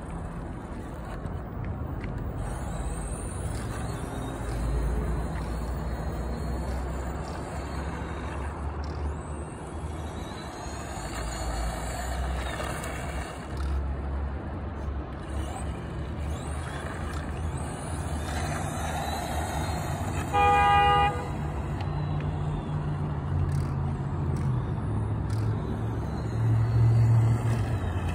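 RC trophy truck driving, its motor whining up and down over a steady low rumble. A single short horn toot sounds about two-thirds of the way through.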